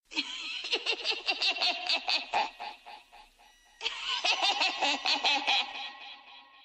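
Laughter in two bouts of quick, rhythmic laughs, with a pause of about a second between them. It sounds thin and dull at the top, like an old recorded sample.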